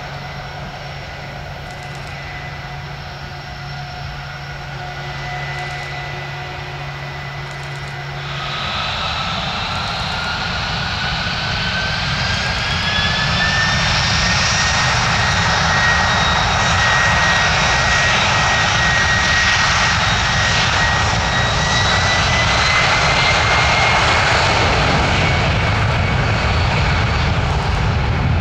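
Tupolev Tu-204 jet engines whining steadily at low power, then spooling up about eight seconds in. A rising whine and growing roar build to a loud, steady take-off thrust.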